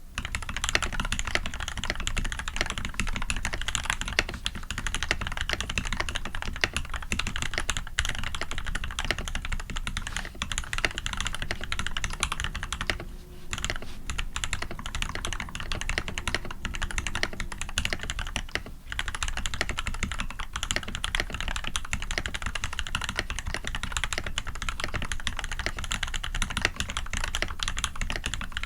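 Fast, continuous typing on a custom Eo87 mechanical keyboard with lubed SP-Star white switches fitted with Cherry top housings, a brass plate and PBT keycaps: a dense stream of keystroke clicks, broken by short pauses about 13 and 19 seconds in.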